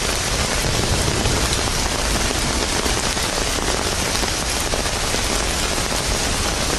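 Heavy rain pelting down hard on surfaces: a dense, steady hiss of many small drop impacts.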